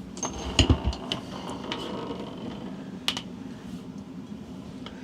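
A few light, sharp clicks of hand tools and wire being handled: electrical wiring being cut and readied for splicing.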